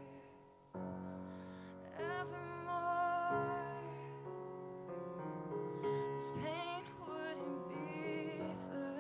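Grand piano played in held chords, with a woman's voice singing long, wavering notes over it. The piano drops away just before the first second and comes back with a fresh chord.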